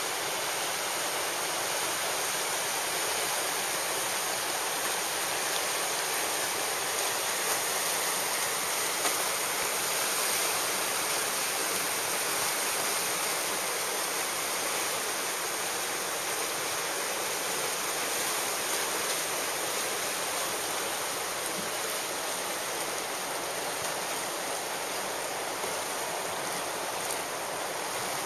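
Whitewater river rapids rushing steadily, a continuous hiss of fast-flowing water.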